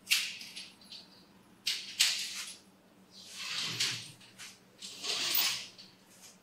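Collapsible steel grille gate being pulled open: a sharp metal clack at the start, then several clattering, sliding pushes of the folding metal lattice, echoing in a bare room.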